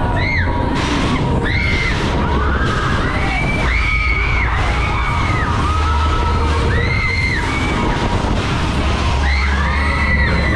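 Riders on a Schäfer Voodoo Jumper fairground ride screaming again and again, several voices overlapping in long rising-and-falling yells, over a constant heavy rumble of rushing air on the onboard camera.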